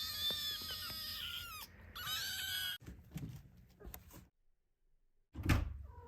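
Several young kittens mewing at once, high thin overlapping cries, for about the first three seconds. Then a second of dead silence and a single loud thump near the end.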